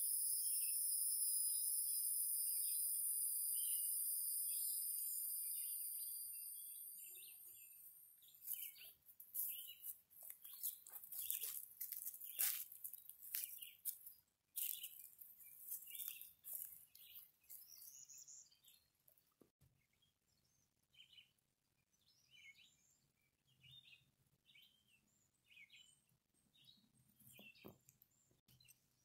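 A high, steady buzz, loudest at the start and fading away over the first several seconds, then a scatter of short bird chirps and calls.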